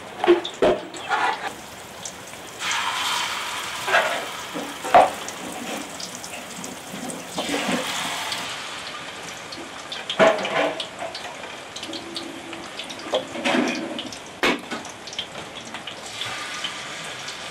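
Spoonfuls of chicken-and-walnut batter sizzling as they drop into hot oil in a metal pan. The hissing swells three times, a few seconds apart, with sharp clinks of a spoon against the metal bowl and pan between them.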